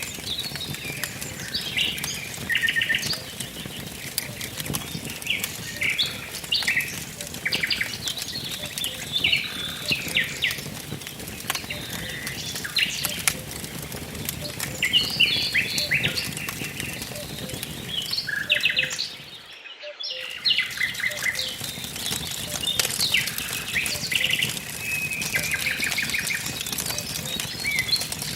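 Wood fire crackling with scattered sharp pops, under busy birdsong of many short chirps and rapid trills. The sound drops out briefly about two-thirds of the way through.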